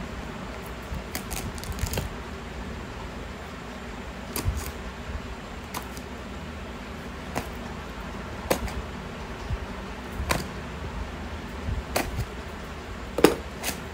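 Utility knife scraping and slicing through packing tape and cardboard on a shipping box, in short, irregular scratches and clicks.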